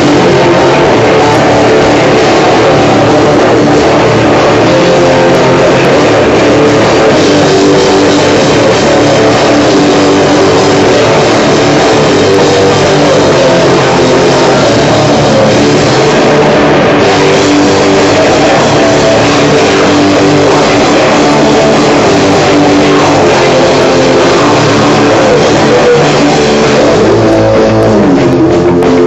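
Live rock band playing a loud song on guitar and drum kit.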